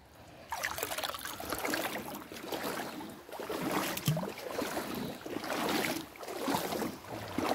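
Creek water sloshing and splashing around a person's legs as they wade through shallow water, in uneven surges that begin about half a second in.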